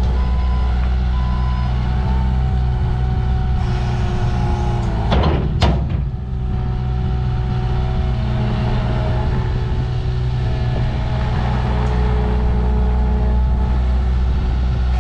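Heavy vehicle engine running steadily at a constant speed, with short beeps on and off in the first second or two and a brief rushing sweep about five seconds in.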